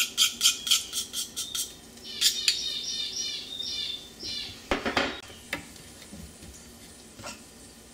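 A metal utensil knocking and scraping butter off a small tray into a stainless steel saucepan, with quick clicks about four a second for the first two seconds. A run of high chirps follows, then a few single clunks of kitchenware.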